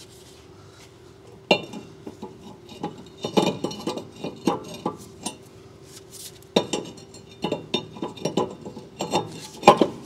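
Cast-iron brake rotor being slid onto the wheel hub and turned over the studs to line up its retaining-screw hole: light metallic clinks and scrapes of iron on the studs and hub. The clinks come in two runs, from about a second and a half in and again in the second half, with a steady faint hum underneath.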